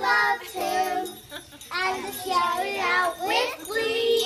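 A group of children singing a Christmas carol together, their voices wavering in pitch, with a short break a little over a second in.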